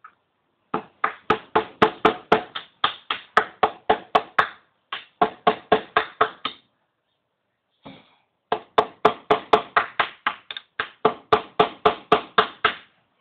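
Hammering: quick, even hammer blows, about four a second, in two long runs with a pause of about two seconds between them.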